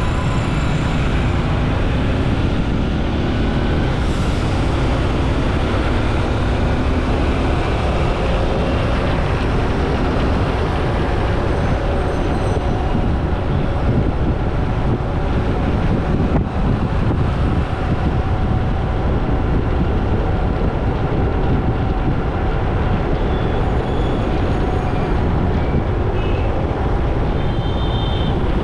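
Steady vehicle noise with a heavy low rumble, holding at an even level throughout.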